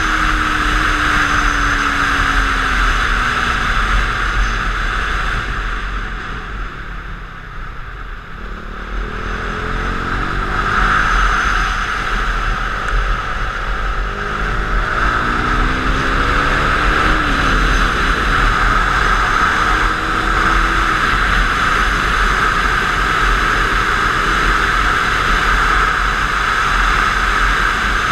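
Heavy wind noise on the camera from a KTM 390 Duke at track speed, with the bike's single-cylinder engine under it. The engine pitch falls as the bike slows, and the wind eases briefly about a quarter of the way in. The engine then climbs through the gears in steps, and a steady fast run with loud wind follows.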